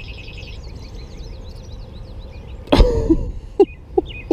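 Small birds chirping in the background. About two-thirds of the way in comes a sudden loud cough-like burst of breath from a person, followed by a few short vocal blips.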